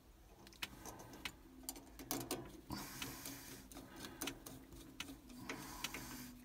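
Irregular small metallic clicks and scrapes of a screwdriver tightening the terminal screws of an immersion heater's thermostat, with a stretch of scraping around the middle.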